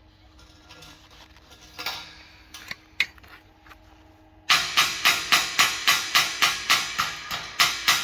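A few faint knocks and clicks, then, about four and a half seconds in, background music with a loud, evenly spaced percussive beat of about four hits a second starts.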